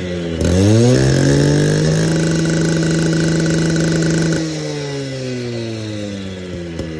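Stihl handheld petrol concrete cut-off saw's two-stroke engine revved up to full throttle, held steady for a couple of seconds, then let off, its pitch falling slowly as it winds down.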